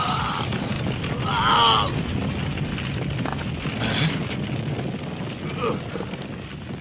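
Anime sound effects: a steady rushing, wind-like rumble, with a short vocal cry about a second and a half in.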